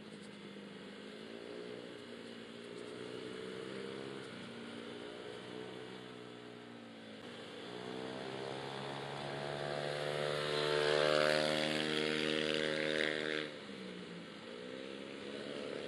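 Honda Vario 150 scooter's single-cylinder engine running under throttle, its pitch rising and falling as the rider opens and eases the throttle. It climbs to its highest and loudest about ten seconds in, with a rushing hiss over it, then drops suddenly a few seconds later as the throttle is shut, and picks up again near the end.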